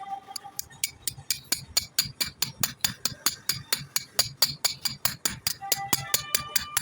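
Rapid, even light hammer taps on metal, about five strikes a second, keeping a steady rhythm throughout.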